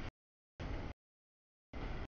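Passing CSX container stack train, its rumble and wheel noise heard in short chunks that cut off abruptly into dead silence three times, as the audio feed drops out.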